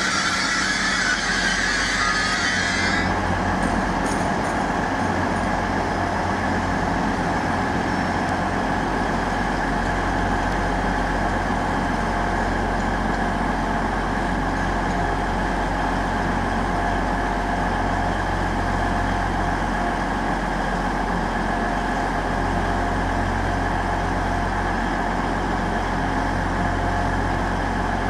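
A train's engine or traction equipment runs steadily with a low hum and a few steady whining tones. A hiss over the first three seconds cuts off suddenly.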